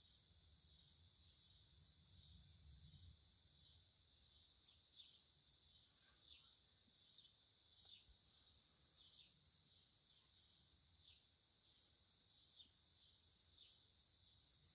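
Faint evening outdoor chorus: a steady high insect drone with short, falling bird chirps about once a second. A brief, faint low rumble comes about two seconds in.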